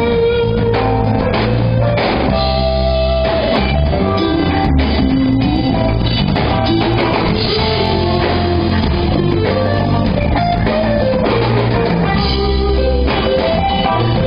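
Live rock band playing loudly: drum kit, electric bass and electric guitar.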